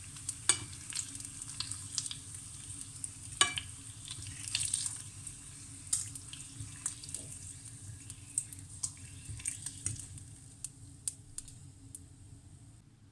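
Bacon fat sizzling and crackling faintly in a nonstick frying pan, with a few sharper clicks and pops as a metal fork lifts the strips out. The sizzle dies away near the end.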